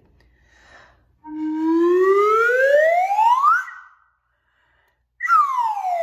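Metal slide whistle blown in one smooth rising glide from low to high, lasting a couple of seconds. After a short silence, a falling glide begins near the end.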